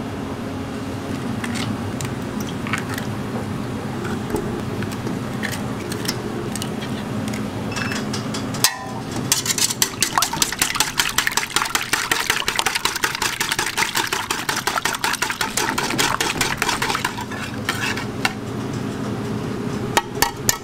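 A wire whisk beating raw eggs in a stainless steel bowl: a fast, dense run of metallic ticks starting a little before halfway and lasting about seven seconds. Before and after it, a steady low machine hum with a few scattered clicks.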